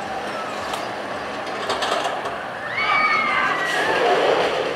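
Theme park background noise with a brief high-pitched squeal or cry, falling slightly in pitch, about three seconds in.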